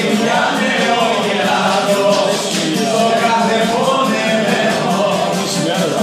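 Live Cretan traditional music: the Cretan lyra playing with voices singing along, over a steady low accompaniment.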